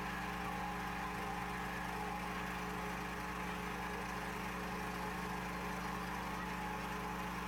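A steady engine hum, like an engine idling, with a few held low tones and no change in level.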